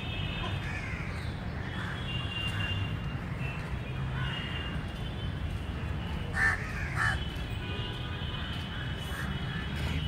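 A crow cawing twice, two loud calls about half a second apart a little past the middle, over a steady low background rumble.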